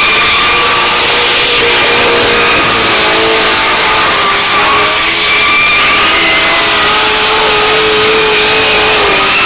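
Drift cars' engines held at high revs while the cars slide with their rear tyres spinning in smoke. The engine note is steady with a slight waver in pitch, over a continuous hiss of tyre noise.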